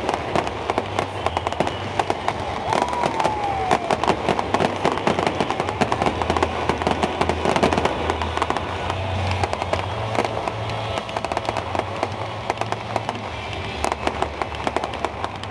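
Aerial fireworks going off in a dense, unbroken run of crackling and bangs, many bursts overlapping.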